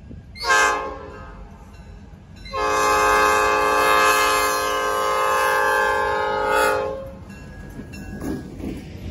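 Multi-note air horn of an EMD F-unit diesel locomotive sounding for a grade crossing: one short blast about half a second in, then one long blast of about four seconds. Near the end the locomotive's engine and wheels rumble louder as it draws close.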